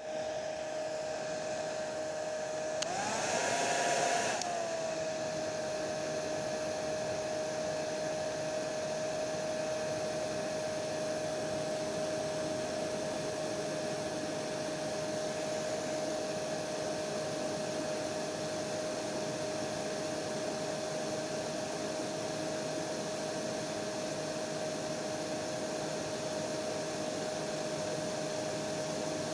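Electric hair dryer running steadily: an even rushing hiss of blown air with a constant motor whine. About three seconds in it briefly gets louder and the whine rises in pitch for a second or so, then settles back to the steady run.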